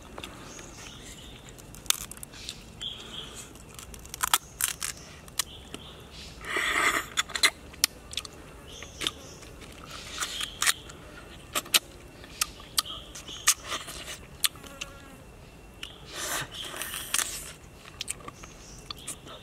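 Someone eating cooked king crab legs: scattered sharp cracks and crunches of shell, with wet biting and sucking of the meat. Two longer, noisier stretches of sucking and crunching, about seven and seventeen seconds in, stand out.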